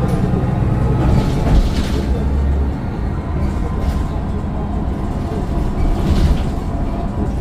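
Mercedes-Benz Citaro bus's Daimler OM906 6.4-litre straight-six turbodiesel running as the bus drives, a steady low rumble with occasional knocks and rattles.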